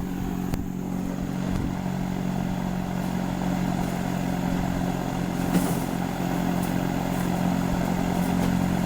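A steady motor hum at an even level, with one light knock about five and a half seconds in.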